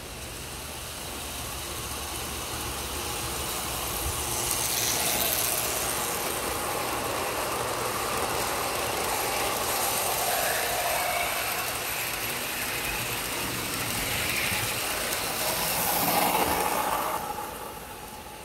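Lionel O-gauge model freight train running on three-rail tubular track: the rumble and clatter of its wheels and electric motor build as it approaches and the long string of freight cars rolls past, loudest near the end, then fall away quickly as the last car goes by.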